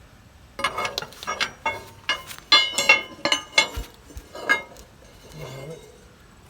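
Metal striking metal, about ten sharp, irregular clanks with a ringing tone that stop about four and a half seconds in. This is a steel steering-cylinder pin being worked into its bore.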